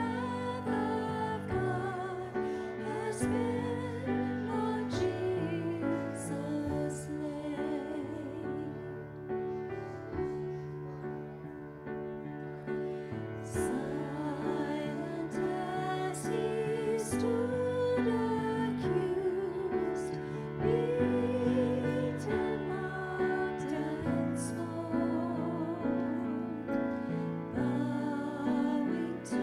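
Women singing a hymn into microphones with grand piano accompaniment, holding long notes with vibrato.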